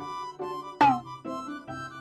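Background music with chords that change about twice a second. Just under a second in, a short, loud sound effect drops steeply in pitch.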